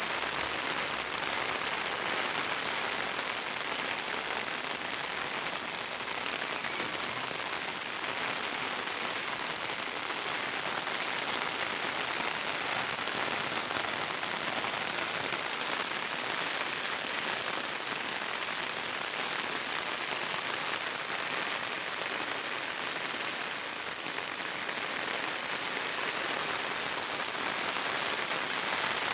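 Steady monsoon rain falling on a concrete courtyard, an even hiss of raindrops that holds at the same level throughout.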